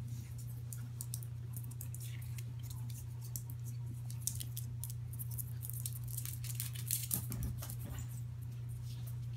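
Light, scattered clicks and rustles from a puppy moving about and being petted, over a steady low hum.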